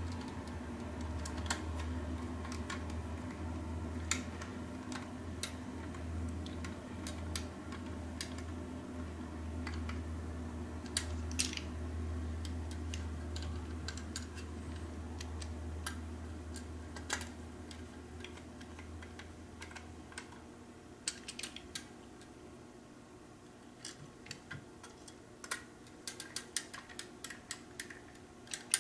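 Scattered small clicks and taps of aluminium antenna elements, small self-tapping screws and a screwdriver handled against a plastic boom, coming thicker in the last third. A low steady hum underneath stops about two-thirds of the way through.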